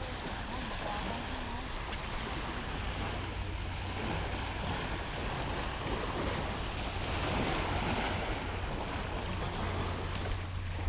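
Small waves washing onto a sandy beach, with steady wind noise on the microphone.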